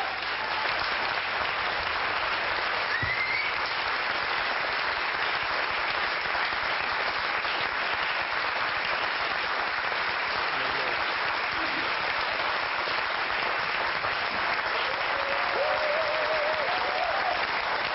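Studio audience applauding steadily, a dense even clapping with a faint voice or two in it near the end.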